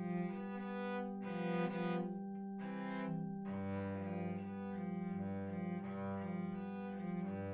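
A cello played with the bow: a slow phrase of sustained notes, with short breaks between strokes about a second in and again between about two and three and a half seconds in.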